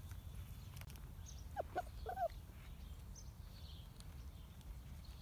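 Eurasier puppy giving three short whines in quick succession about a second and a half in.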